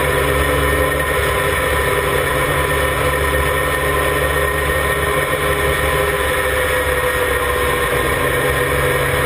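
Formula Mazda race car's rotary engine running at steady revs on track, heard from an onboard camera, with wind and road noise over it.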